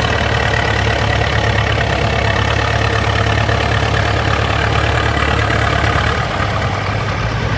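Ursus C-360 tractor's diesel engine running steadily at low revs, with a second tractor engine running close by; the low note shifts a little about six seconds in.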